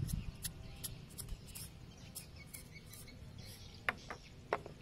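Faint, scattered light clicks and taps from bowls being handled while salt is tipped from a small bowl into batter in a metal mixing bowl, over a low background hiss.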